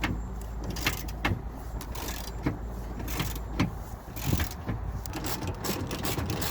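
Irregular metallic clicks of a wrench working a stiff 10 mm bolt loose on a car door's window regulator, over a steady low hum.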